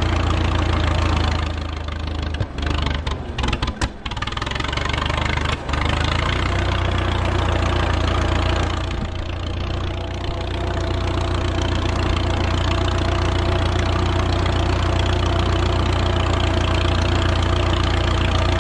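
1937 Farmall F20's four-cylinder engine running as the tractor is driven, through a bare exhaust stack with no muffler. The sound drops and cuts out for moments from about two to six seconds in, dips again around ten seconds, then runs on steadily.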